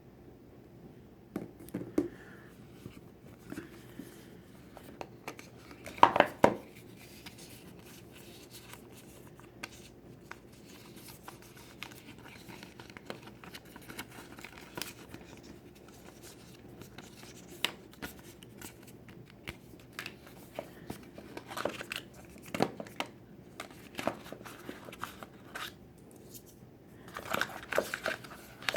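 Hands unboxing an iPhone 11: the box and its packaging being torn open, slid and handled, with scattered tearing, crinkling, scrapes and clicks. The loudest bursts come about six seconds in and again near the end.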